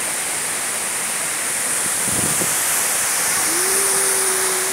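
Waterfall rushing and splashing into a pool, a steady loud hiss. About three and a half seconds in, a single steady held tone comes in over it.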